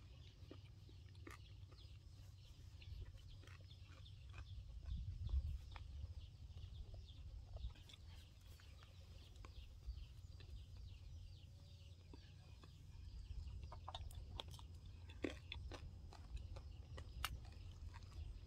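A man chewing a mouthful of food with his mouth closed: soft, irregular mouth clicks and smacks over a low steady rumble.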